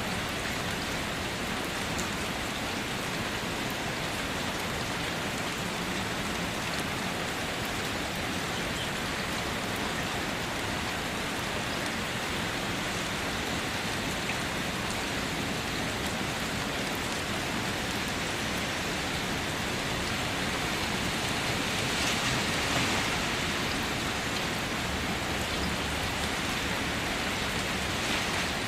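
Steady rain falling: an even hiss of many drops, swelling slightly about three quarters of the way through.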